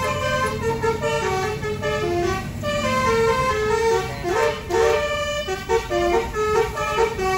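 A bus's multi-tone musical air horn (a "telolet" horn) playing a tune of short notes that jump between pitches, over the low hum of the bus engine.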